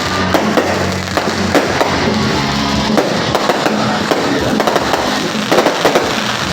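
Fireworks banging and crackling over music with sustained low notes.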